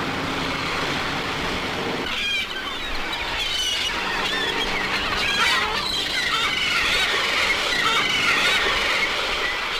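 Seagulls calling: many overlapping squealing cries that start about two seconds in, over a steady background rumble.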